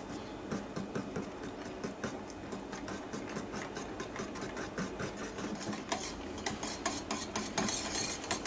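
A whisk beating a cream cheese and cream mixture in a bowl, with rapid, uneven clicking of the whisk against the bowl, a little stronger near the end.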